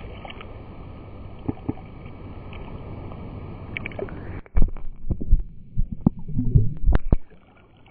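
Sea water washing and sloshing as an even hiss, then a run of loud, irregular dull thumps and knocks from about four and a half to seven seconds in.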